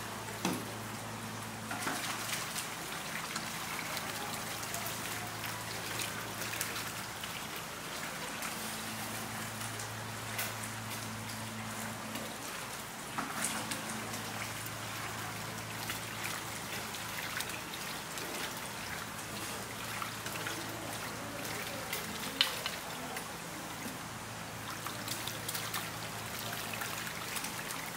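Water splashing and trickling as live sweetfish (ayu) are scooped with a landing net from a holding tank and dropped into a bucket of water, with many scattered small splashes. A steady low hum runs underneath.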